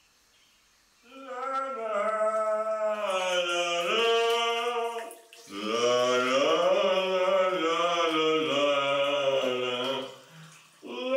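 A man's voice singing slow, long-held notes without words, in two long phrases with a short break between them, starting about a second in; a third phrase begins right at the end.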